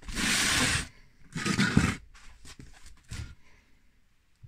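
Handling noise as the RC excavator undercarriage, a metal chassis plate on roller-chain tracks, is set onto a wooden block. A scraping slide lasts about a second, then a second rougher scrape with a knock, then a few light clicks.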